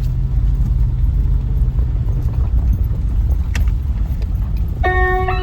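A horse galloping: hoofbeats under a loud, steady low rumble, with one sharp click about three and a half seconds in. Organ music comes in near the end.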